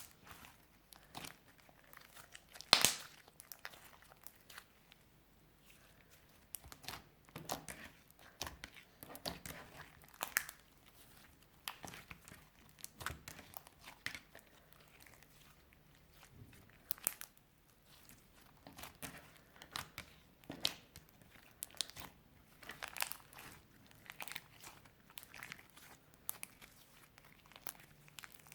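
Clear slime with broken-up pressed eyeshadow in it being squished and kneaded by hand, giving irregular sticky clicks and crackles, with one louder pop about three seconds in.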